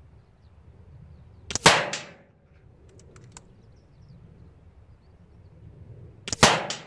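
Two shots from an Air Arms S510 SL Carbine .22 PCP air rifle, each a sharp crack with a brief tail, one about a second and a half in and the other near the end. A few light clicks come between them.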